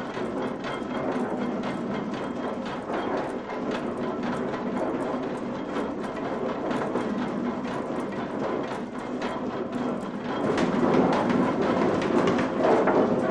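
Snuff mill machinery running: a continuous clatter of rapid wooden and metal knocks and rattles, growing louder about ten seconds in.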